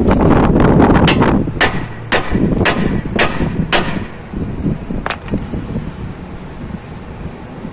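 A rush of wind noise on the microphone, then a run of about seven sharp metallic knocks roughly every half second, part of work on a car's front suspension while its ball joint is being checked.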